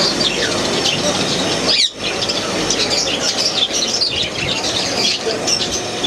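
Many caged birds chirping and chattering together, a dense overlapping mix of short high chirps, with a brief break about two seconds in.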